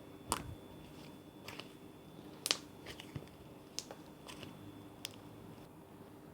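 Slime being handled: about eight irregular sharp clicks and sticky pops, the loudest about two and a half seconds in.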